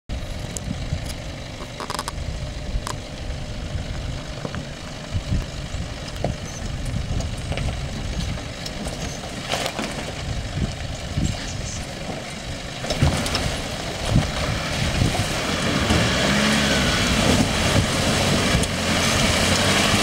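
A Nissan Patrol 4WD ute's engine running slowly and steadily, with a few scattered knocks. About two-thirds of the way in, a louder rush of splashing water builds as the wheels drive into the shallow river.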